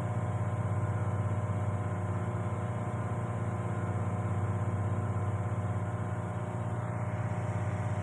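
Steady low hum of running machinery, with a fine, even pulsing.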